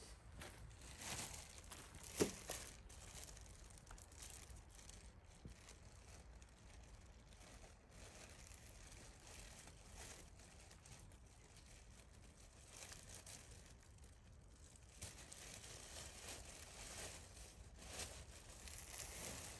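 Faint rustling and crinkling handling noise, with a sharp click about two seconds in.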